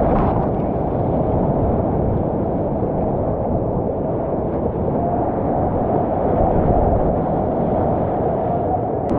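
Whitewater rapids rushing and churning around a kayak: a steady, loud, muffled rush of water.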